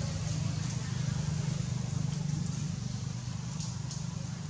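A motor vehicle's engine running steadily out of sight, giving a constant low drone, with a few faint high chirps about three and a half seconds in.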